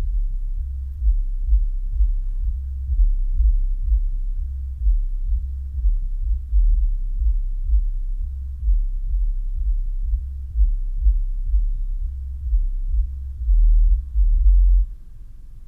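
A 12-inch ported car subwoofer playing deep bass notes in a pulsing, uneven beat, with almost nothing above the low bass. The bass drops away just before the end.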